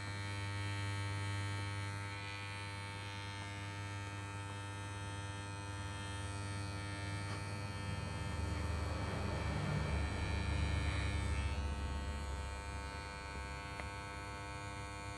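Electric hair clipper running with a steady hum as it shaves a baby's hair. It grows louder and rougher for a few seconds just past the middle.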